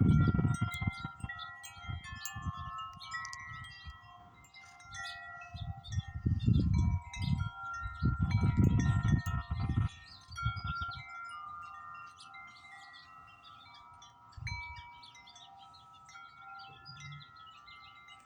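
Tubular wind chimes, led by a Grace Note chime, ringing constantly in strong wind: many overlapping tones struck over and over. Gusts of wind rumble at the microphone a few times in the first ten seconds.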